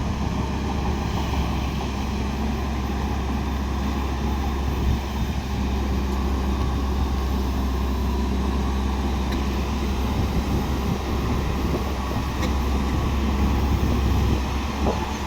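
JCB 205 excavator's diesel engine running steadily, with a few faint knocks.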